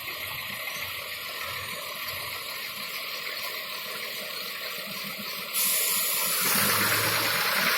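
Steady hissing noise that turns suddenly louder about two-thirds of the way in. Near the end a hydraulic crane truck's diesel engine comes in with a low, steady hum.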